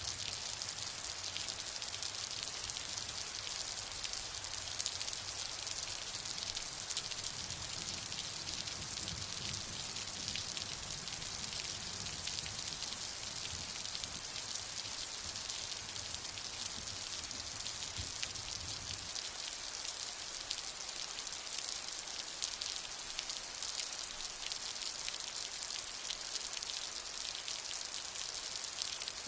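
Steady heavy rain: a dense, even patter of raindrops on a surface. A low rumble underneath drops away about two-thirds of the way through.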